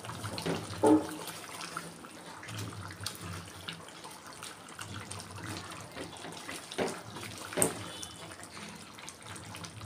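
Wooden spatula stirring thick chicken curry in a clay pot: wet sloshing and squelching of the gravy, with a few sharper knocks of the spatula against the pot, about a second in and twice near the seven-second mark.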